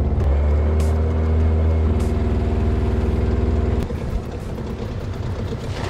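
Outboard motor on a small aluminium boat running steadily, its low hum dropping away abruptly about four seconds in as the motor is throttled back.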